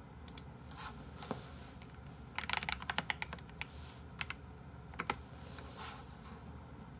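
Computer keyboard typing: scattered keystrokes, then a quick run of keys about two and a half seconds in, followed by a few single clicks.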